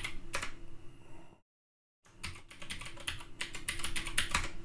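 Computer keyboard typing: quick, irregular key clicks that stop for about half a second a little over a second in, then carry on.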